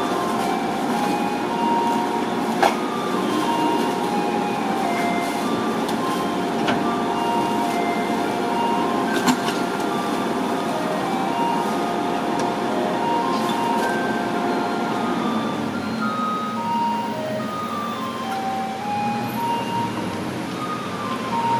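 Japanese garbage truck playing its electronic melody, a tune of short single notes, over the steady hum of the running truck. A few sharp knocks come as bags go in, and the hum drops about fifteen seconds in.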